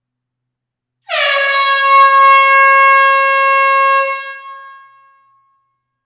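One long air horn blast on a single high note, starting about a second in, held steady for about three seconds and then fading away.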